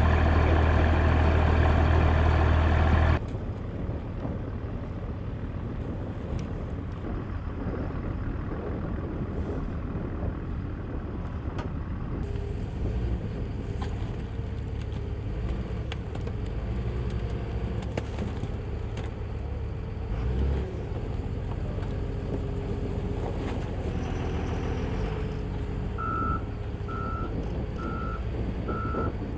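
Large rough-terrain forklift's engine running steadily as it lifts and carries airdrop cargo bundles, with its reversing alarm beeping about once a second near the end. For the first three seconds a louder steady drone plays, which cuts off abruptly.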